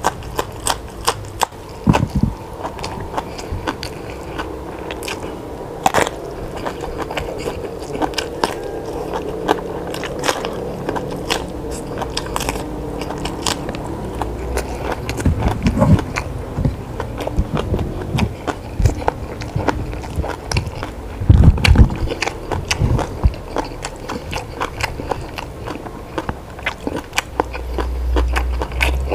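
A person eating close to the microphone: irregular crisp bites and crunches with chewing throughout, and a heavy low thump about three quarters of the way through.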